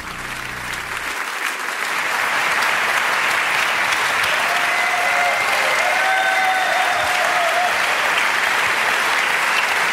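Large seated audience applauding, swelling over the first couple of seconds and then holding steady.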